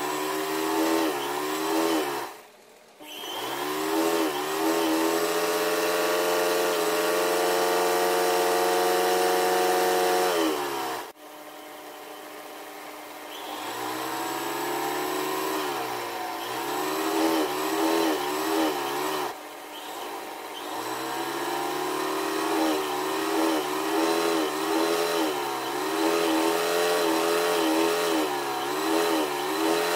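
Electric sewing-machine motor stitching embroidery fill. Its hum speeds up and slows down again and again, holds steady for several seconds, and stops briefly about two seconds in and again about eleven seconds in.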